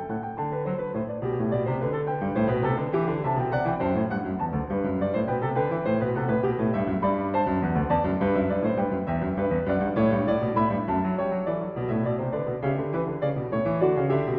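Solo piano music.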